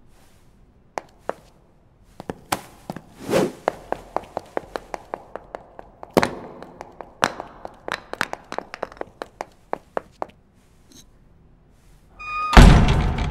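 Wooden knocks and taps on a stone floor, a few at first and then a quick irregular run of about four a second, with a short scrape among them. A loud sudden burst of sound comes near the end.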